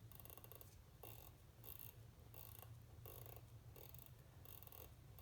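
Faint, fairly even clicking, about one click every 0.7 s, from the click and ratchet wheel of a manual-wind watch movement as the mainspring is wound by turning the ratchet wheel. The mainspring does not seem to be taking up any tension, to the watchmaker's puzzlement.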